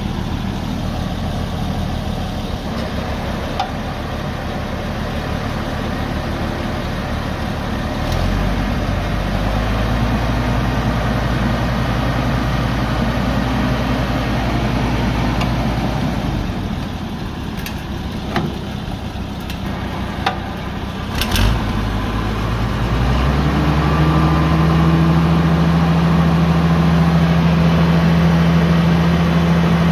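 1951 Oliver 77's six-cylinder engine running at idle. Its note changes about eight seconds in, with a few sharp clunks in the middle, then it speeds up to a higher steady pitch near the end.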